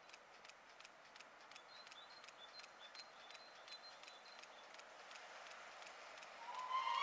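Faint, steady clicking, about four a second, from the steam train rolling slowly in. Near the end a steam locomotive whistle starts up, one loud held note that is the loudest sound here.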